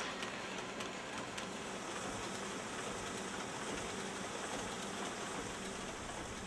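Print-shop finishing machinery running: a steady mechanical noise with a low hum and a few faint clicks.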